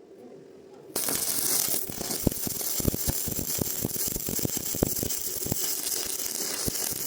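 Stick (SMAW) welding arc on rebar, struck about a second in and burning steadily with a loud hiss and irregular crackling pops.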